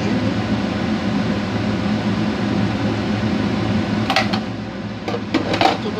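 Steady machine hum from a running kitchen fan or appliance motor. A few short clinks and rustles about four seconds in and again just before the end, as salt is added to the rice pot.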